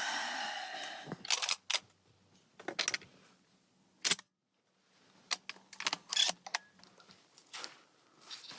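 Irregular crunching and clicking, like footsteps through snow and brush, after a short pitched sound at the start.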